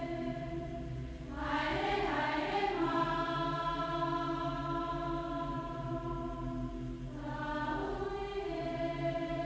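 Film soundtrack music played back from reel-to-reel tape: a choir holding long chords, swelling into a new chord about a second and a half in and again near the end.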